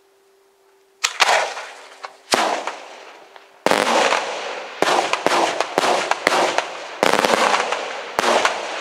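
Daytime aerial fireworks shells bursting: after about a second of quiet, a run of loud sharp bangs, some single and some in quick clusters of cracks as the shells scatter small report charges, each followed by a rolling echo.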